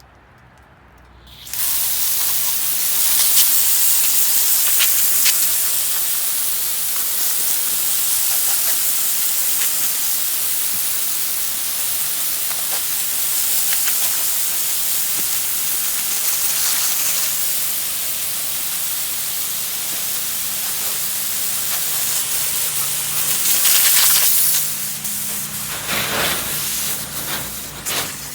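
Water from a garden hose spraying onto a freshly sawn red oak log face, a steady loud hiss. It starts suddenly about a second and a half in, swells briefly near the end, then tapers off.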